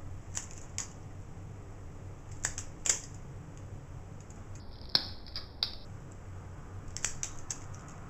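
Balisong (butterfly knife) handles clicking together as the knife is flipped open and closed: short sharp clicks in small groups, the loudest about five seconds in, and a quick run of clicks near the end.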